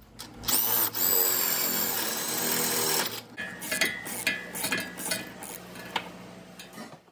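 Power drill spinning up and running steadily for a couple of seconds, then a run of short trigger bursts, working in a broken bolt's hole in a rusty vehicle frame rail.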